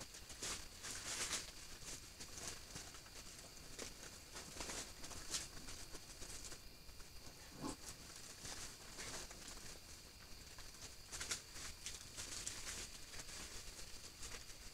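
Faint irregular rustling and crackling of crab-eating raccoons foraging among dry leaf litter and fallen banana debris, over a faint steady high tone.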